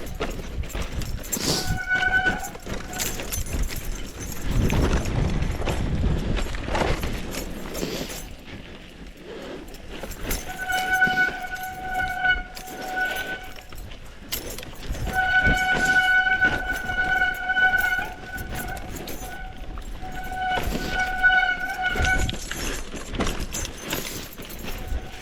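Mountain bike disc brakes squealing in repeated spells of one to three seconds, a steady high whistle with overtones each time the brakes are dragged on the descent, over the rumble of tyres and wind between.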